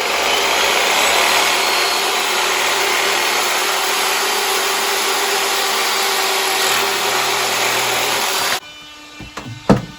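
Power saw cutting through plastic drain pipe, running steadily for about eight and a half seconds and then stopping suddenly. A couple of sharp knocks follow near the end.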